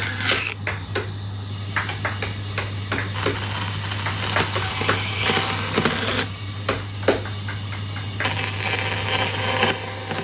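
Woodworking tool sounds: irregular knocks and clicks of tools on wood over a steady low hum, with spells of hiss.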